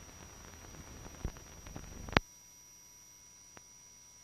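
Faint hiss and crackle of an old film soundtrack with scattered clicks. A sharper click comes about two seconds in, after which the noise drops to near silence with only a faint steady tone.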